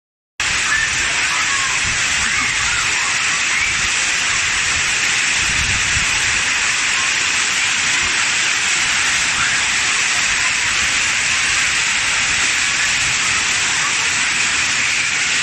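Hailstorm: hail and heavy rain pelting down in a loud, dense, steady hiss.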